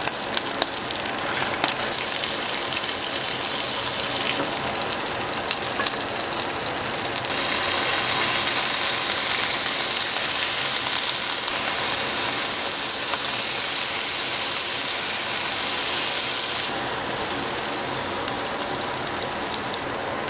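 King salmon collars sizzling as they pan-fry in hot oil in a nonstick frying pan, with a few sharp crackles as they go in. The sizzle grows louder about seven seconds in and eases off near the end.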